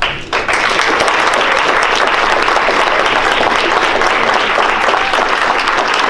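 An audience breaks into applause about half a second in and keeps clapping steadily.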